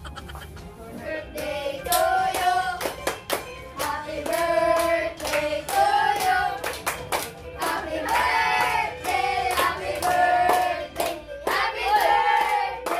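A small group of adults and children singing together while clapping their hands in time.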